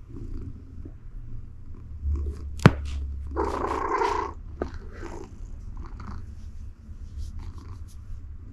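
A tabby cat purring steadily as she is stroked, a continuous low rumble. A sharp click comes about two and a half seconds in, and there is a short burst of rustling near the middle as she rolls her head against the mat.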